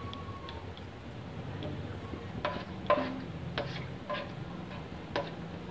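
A spatula stirring green cardamom pods in hot ghee, knocking and scraping against the pan: a handful of sharp, briefly ringing clinks from about halfway in, the loudest near three seconds in, over a low steady hum.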